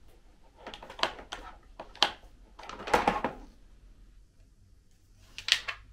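Clicks and clatter of flat-pack shelf parts being handled and knocked together: a handful of separate sharp knocks, the loudest about three seconds in.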